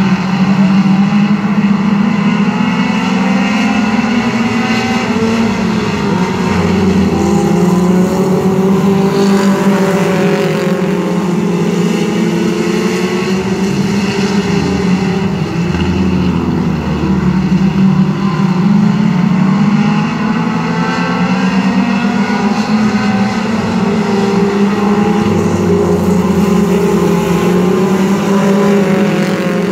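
A field of mini stock race cars with four-cylinder engines racing on a dirt oval: several engines running hard together, their pitch rising and falling as the pack comes by and moves away around the track, about three times.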